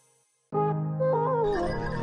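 Background music: after half a second of silence, a new piece starts abruptly, with falling melodic runs over steady low notes.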